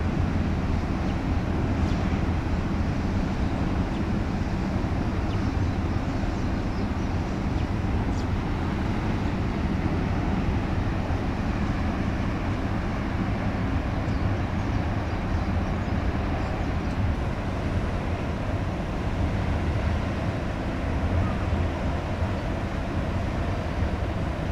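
Large container ship passing, her engines heard as a steady low rumble under a haze of open-air noise.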